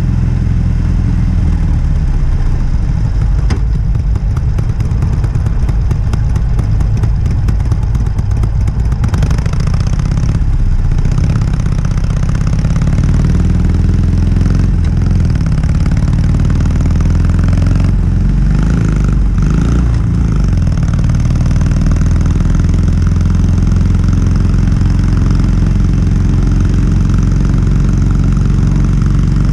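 Harley-Davidson Sportster 883's air-cooled V-twin engine running on its stock exhaust with a steady, low, even note. Its pitch rises and falls briefly a couple of times past the middle.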